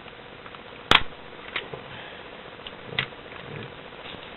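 A few sharp clicks and knocks of objects being handled, the loudest about a second in, with smaller ones around one and a half and three seconds in.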